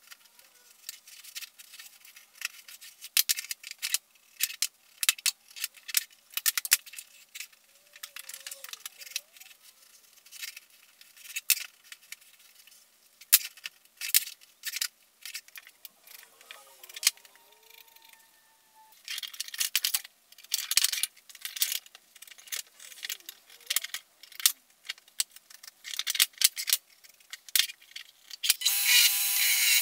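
A pencil and a small plywood marking block tapping and scraping on a wooden handle blank as lines are marked out: a long run of irregular sharp clicks and short scrapes. Near the end it gives way abruptly to the steady running noise of a bench belt grinder.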